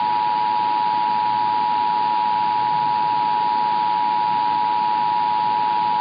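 Emergency Alert System two-tone attention signal, a steady unbroken tone near 1 kHz, heard over AM radio with a hiss of static under it. It announces an incoming tornado warning.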